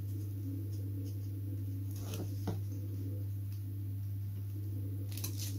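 A steady low hum under a few faint taps and scrapes of hands working the covering film on a balsa model wing, the clearest about two seconds in and again near the end.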